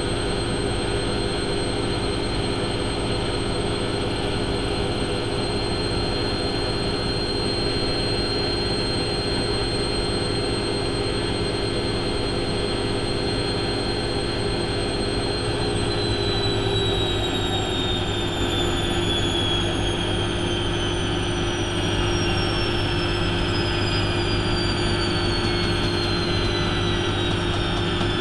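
Hotpoint Aquarius WMF70P washing machine spinning, with a steady high motor whine and drum hum; about halfway through, the whine begins to fall in pitch as the drum slows down from spin speed.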